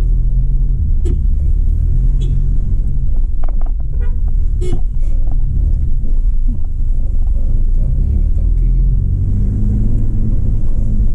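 Car engine and road rumble heard from inside the cabin as the car climbs a steep road slowly, with a few short clicks and knocks about four seconds in.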